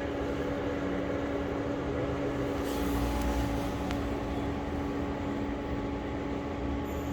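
Steady mechanical hum with a constant low tone over a rumble, a brief hiss about three seconds in and a single click a second later.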